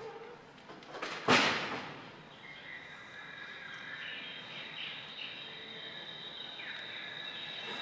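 Opening of a recorded soundtrack for a stage dance: a sudden swish about a second in that fades quickly, then a steady high tone with short gliding, chirp-like calls over it.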